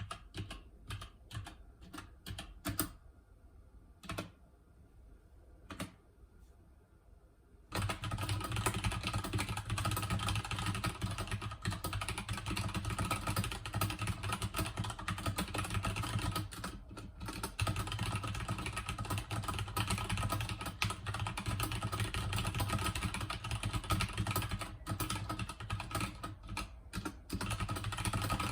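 Keychron K2 mechanical keyboard with Gateron Brown switches and PBT keycaps being typed on: a few separate keystrokes at first, then about eight seconds in, fast continuous typing, with a steady low hum coming in at the same time.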